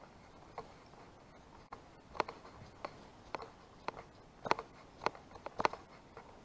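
Footsteps of a person walking on a paved path, about two steps a second, each a short sharp tap, growing clearer about two seconds in.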